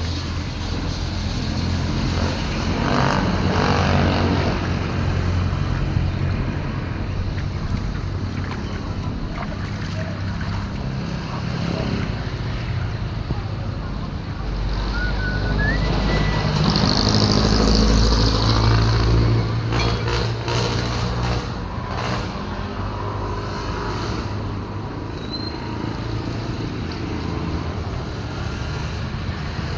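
A motor vehicle's engine running, swelling louder twice, with road noise.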